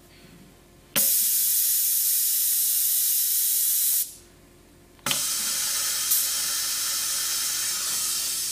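Compressed air hissing from the TSV-150 pneumatic safety-valve lapping machine in two long blasts, each opening with a click: the first starts about a second in and stops three seconds later, and the second starts a second after that and keeps going.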